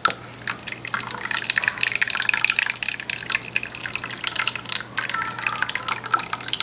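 Lye water poured in a steady stream down the shaft of a stick blender into a bowl of soap-making oils: a continuous splashing, trickling pour with small drips and clicks, beginning abruptly. This is the lye being added to the oils in cold-process soap making.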